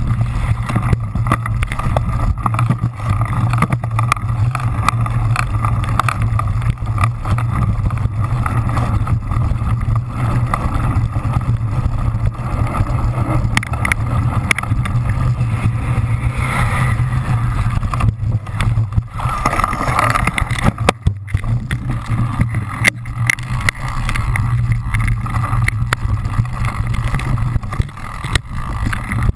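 Onboard camera on a cyclocross bike racing over a sandy, bumpy course: a steady rumble of tyres and frame, with constant small rattles and knocks from the rough ground and wind on the microphone.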